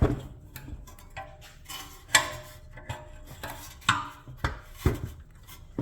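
Hand tools clinking and knocking against metal brake parts while prying at a stuck piece: several sharp, irregularly spaced clicks with brief metallic ringing.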